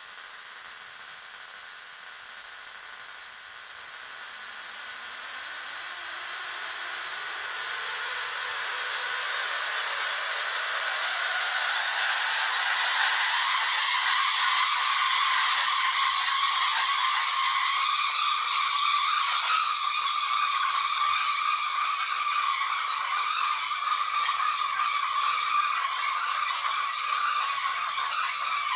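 Arcs from a ZVS-driven Tesla coil's discharge, a steady buzzing hiss. It grows louder over roughly the first ten seconds and then holds steady.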